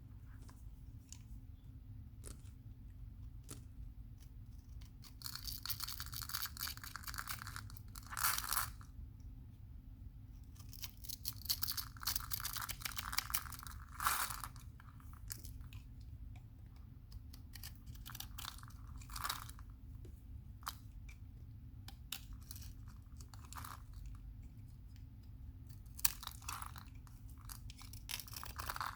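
Dry bar of Camay soap crumbling and crackling as it is cut, in several bursts of a few seconds each, with scattered small clicks between them.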